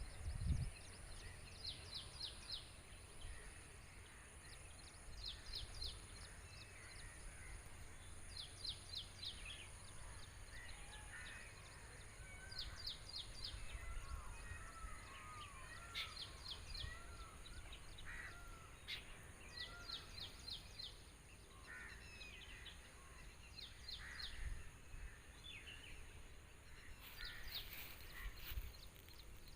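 Birds singing and calling outdoors. Short, rapid trilled phrases repeat every few seconds, with scattered chirps between them, over a steady high hiss and a low background rumble.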